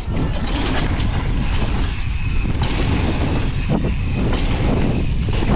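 Wind buffeting the microphone of a camera riding along on a mountain bike, a steady loud rumble.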